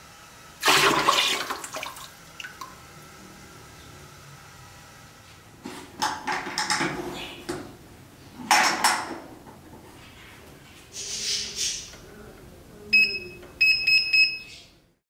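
Liquid ceramic glaze pouring and splashing into a bucket, followed by a few short handling noises. Near the end an electric kiln's digital controller gives several short electronic beeps as its keypad is pressed.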